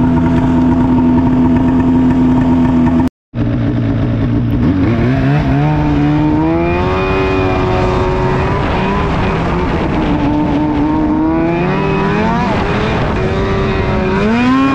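Arctic Cat M8000 Hardcore snowmobile's 800 C-TEC2 two-stroke twin, fitted with an NPP exhaust, running at a steady speed, then after a brief silent gap about three seconds in, rising and falling in pitch again and again as the throttle is opened and eased.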